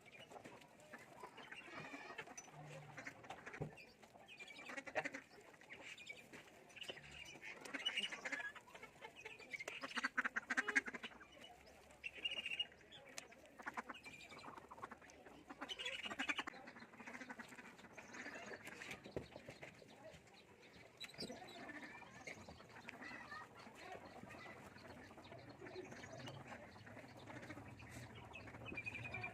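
Farmyard poultry calling on and off, with ducks quacking.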